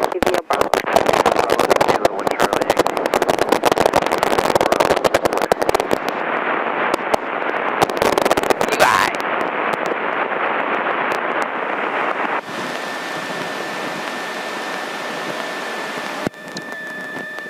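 Light aircraft's engine running during taxi, heard through the cockpit intercom with dense crackling static for the first several seconds. About twelve seconds in, the sound changes to a steady hiss with a thin high whine.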